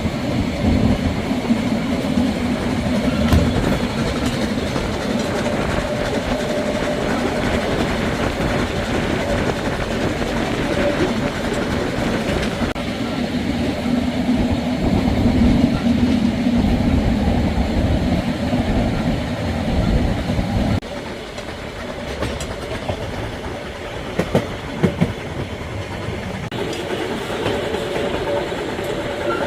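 Train running along the track with a steady rumble that turns quieter about two-thirds of the way through, followed shortly by a few sharp knocks.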